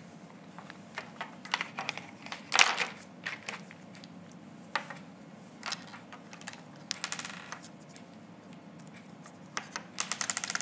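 Plastic molecular model kit pieces clicking and knocking together as a ball-and-stick ring model is put together by hand: irregular clicks, with a louder knock about two and a half seconds in and a quick rattle of clicks around seven seconds.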